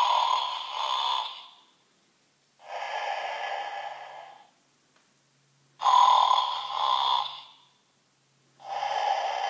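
Snoring plush toy playing a recorded snoring loop through its small speaker: a loud snore, then a softer breath out, repeating about every six seconds. The sound is thin, with no deep bass.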